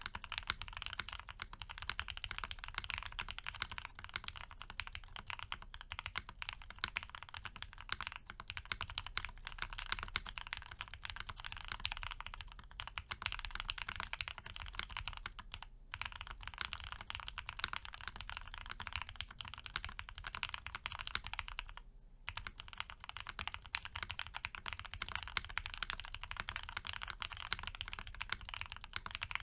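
Fast, continuous typing on a mechanical keyboard with lubed and filmed Gateron FC linear switches in a polycarbonate plate, topped with CRP APL keycaps. The key strokes come in a dense stream, with two brief pauses, one a little over halfway through and one later.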